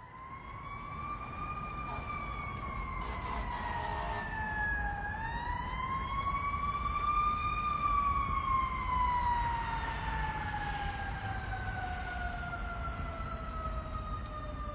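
Fire engine siren wailing. The pitch rises, dips about five seconds in, climbs again, then slowly winds down, over a low rumble.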